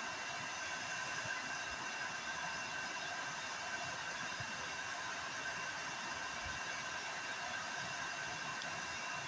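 Hair dryer running steadily, blowing air to keep a plastic ball floating: an even rushing hiss with a faint high whine.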